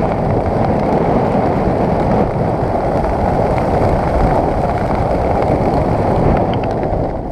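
Loud, steady rush of wind across the microphone of a skydiver's camera during a descent under an open parachute.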